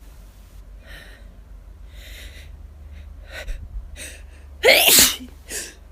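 A person with hay fever takes a few short, gasping breaths as a sneeze builds, then gives one loud sneeze near the end, followed by a short breath.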